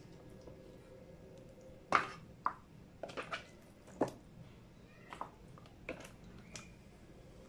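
Raw chicken pieces being handled, lifted out of a plastic freezer container and set down on a tray: a string of short, separate wet handling sounds and light knocks, the loudest about two seconds in.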